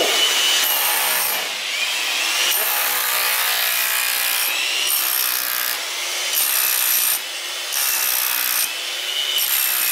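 A series of rasping strokes on wood, each under a second, with short breaks between them.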